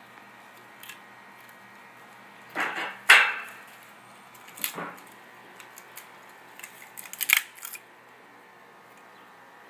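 Split pecan logs being handled and stacked in an offset smoker's firebox: a few separate clunks and scrapes of wood on wood and metal, the loudest about three seconds in and a quick cluster around seven seconds.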